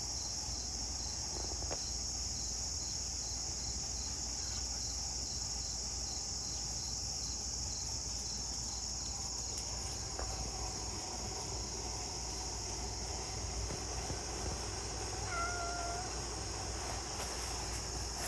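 Steady high-pitched chorus of insects such as crickets, with a faint chirp about twice a second. A single short cat meow comes about fifteen seconds in.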